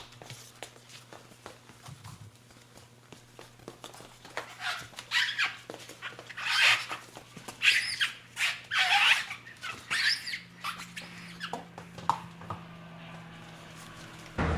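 A dog whining and yowling in a series of rising-and-falling cries, from about four seconds in until about ten seconds in, over a low steady hum and a few small clicks.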